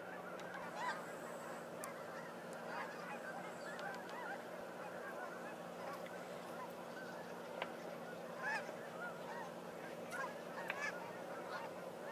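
A large flock of snow geese calling as they come in to land on a feeding field: a continuous chorus of many overlapping short, high honks.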